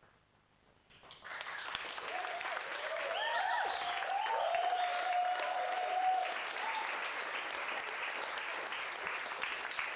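An audience breaks into applause about a second in, with voices whooping and cheering over the clapping.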